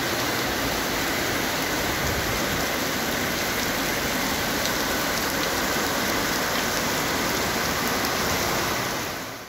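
Heavy rain pouring down onto a waterlogged street and paving, a steady dense hiss of downpour that fades out quickly near the end.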